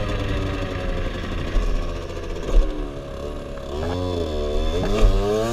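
Aprilia SX 50 moped's 50 cc two-stroke engine running under way; near the end the revs fall and climb again, twice.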